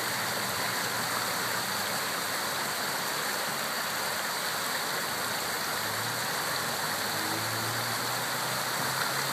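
Steady rush of shallow river water pouring over and through a concrete channel. A faint low hum comes in about six seconds in.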